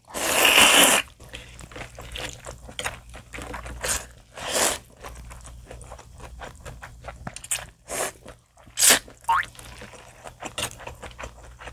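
A person slurping rice noodles: one long loud slurp in the first second, then a run of shorter slurps and wet mouth sounds, with a brief rising squeak near the end.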